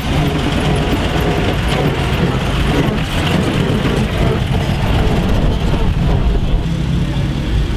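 A vintage pre-war saloon car's engine running with a low, steady sound as the car drives past.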